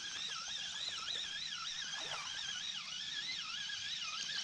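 Spinning reel being cranked to bring in a fish after a bite, giving a steady whine that wavers up and down in pitch about twice a second.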